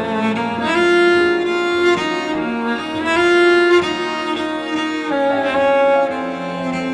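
Background music of bowed strings, cello and violin, playing held notes that change about once a second.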